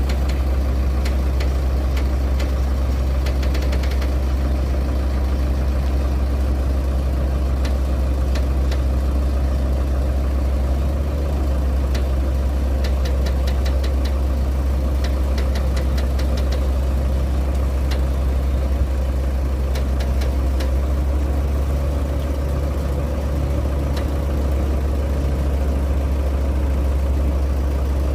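An excavator's diesel engine running steadily with a deep, even drone, with scattered sharp clicks and light clanks over it.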